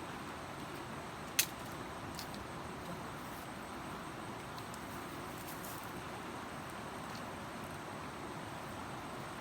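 Steady rushing hiss of flowing river water, with one sharp click about one and a half seconds in and a few faint ticks after.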